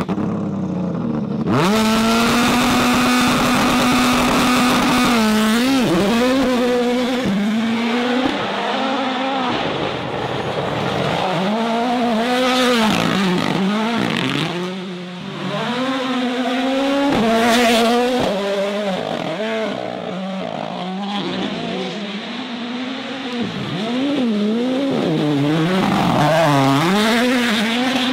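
Ford Puma Rally1 cars' turbocharged 1.6-litre four-cylinder engines revving hard on gravel. The pitch climbs and drops sharply again and again through quick gear changes, after being held at one steady rev for a few seconds soon after the start.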